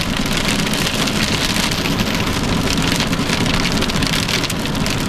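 Heavy rain pelting a moving car's windshield and body, a dense steady crackling hiss, with low road and engine noise under it.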